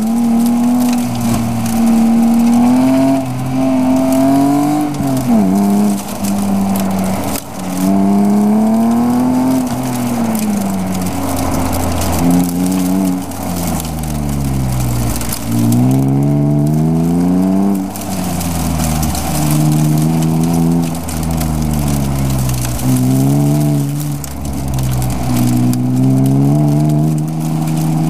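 BMW E36 M3's straight-six engine, heard from inside the cabin, repeatedly revving up and falling away as the car accelerates and brakes through an autocross course.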